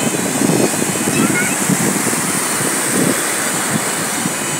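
Wind buffeting the phone's microphone over the steady rush of breaking surf, with a faint high voice calling briefly about a second in.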